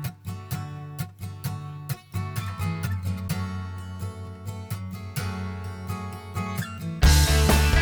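Background music: plucked acoustic guitar notes over a bass line, getting louder and fuller about seven seconds in.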